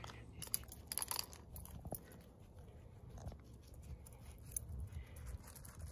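Faint, scattered crunches and clicks of a small dog's paws on a gravel driveway, over a low steady hum.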